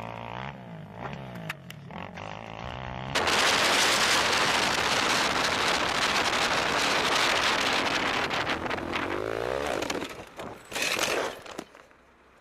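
A small off-road vehicle engine revving up and down, then about three seconds in a sudden loud rushing noise covers it for about seven seconds, with a short loud burst near the end before it drops away.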